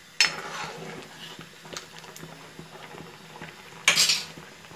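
Thin curry boiling in a black wok, a steady bubbling with many small pops. A ladle stirs through it, making two short, loud swishes: one just after the start and one near the end.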